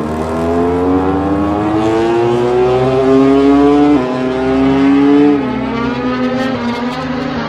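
KTM RC16 MotoGP bike's V4 screamer engine accelerating hard, its pitch climbing through a gear. The pitch drops sharply at an upshift about four seconds in and again about a second later, then the engine runs at steadier revs.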